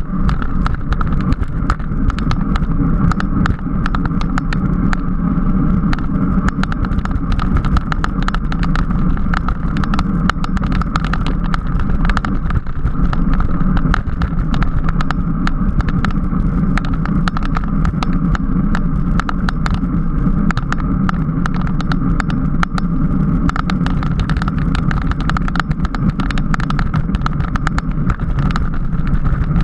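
Steady wind rush and road noise at a camera carried on a racing bicycle while riding, with frequent small rattling clicks throughout.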